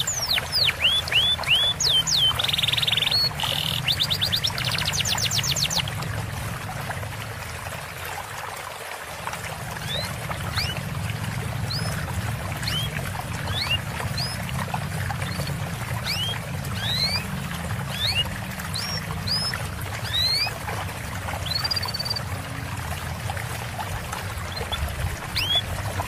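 Recorded songbirds over steadily trickling water: a fast trilling, sweeping song for the first six seconds or so, then thin, rising high chirps repeated about once a second.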